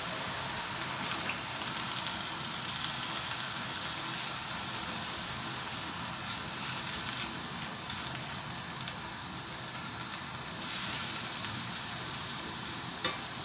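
Vegetables and meatballs sizzling and hissing in a wok with a little water just added, a steady frying sound. A spatula clicks and scrapes against the wok now and then, the sharpest knock near the end.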